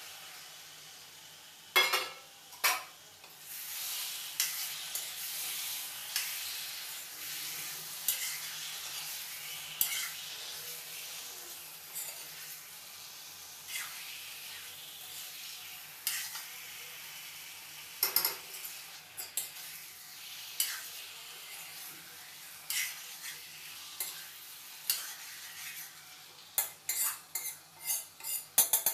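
Marinated chicken sizzling in hot oil in a kadai, while a metal spatula scrapes and knocks against the pan as it is stirred. Two loud knocks come about two seconds in, then the hiss rises and slowly dies down. Near the end the knocks come quickly, a few a second.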